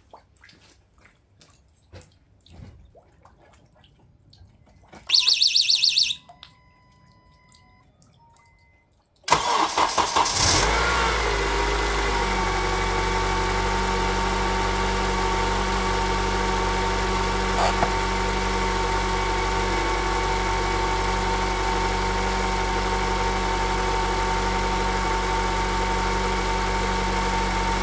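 Faint dripping and ticks, then a brief pulsed beep about five seconds in. About nine seconds in, the 2008 Honda CR-V's 2.4-litre four-cylinder petrol engine cranks for about a second, catches, and settles into a steady cold fast idle. The owner's engine knock, which he compares to a motor running without oil, merges into the raised idle and does not stand out.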